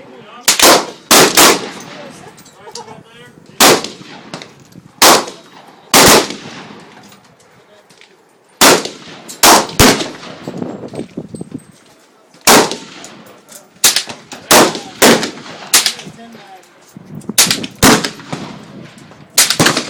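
Remington 597 .22 LR semi-automatic rifle firing about eighteen sharp shots, singly and in quick runs of two or three, with pauses of one to three seconds between runs.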